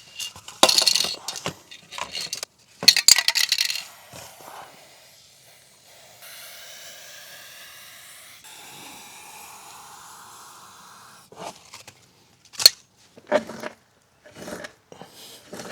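Aerosol chain lube sprayed onto a motorcycle chain in two hissing bursts of about a second each, followed later by a few sharp clicks and knocks.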